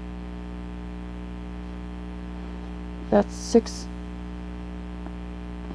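Steady electrical mains hum, with two brief soft vocal sounds about three seconds in.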